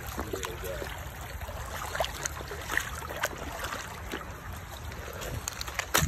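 Creek water trickling over rocks under a low, steady rumble, with scattered faint clicks and ticks.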